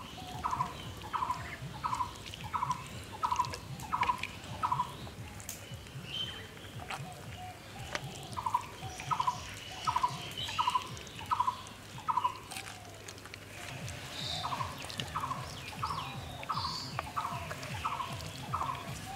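A bird calling over and over: a short rattly note repeated about every 0.7 s, in three runs separated by pauses of a few seconds.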